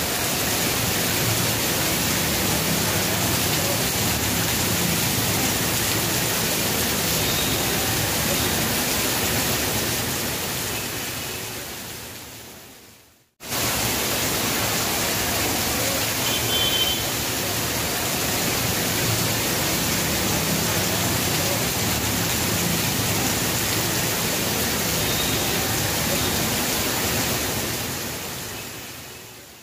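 Heavy monsoon rain pouring down on a waterlogged street, a steady rushing hiss. It fades away about twelve seconds in, then starts again and fades out near the end.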